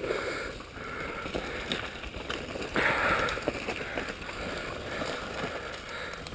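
Downhill mountain bike riding over a rocky dirt trail: tyres running over loose stones and dirt, with short knocks and rattles from the bike over bumps and a steady rush of wind on the microphone, louder for a moment about three seconds in.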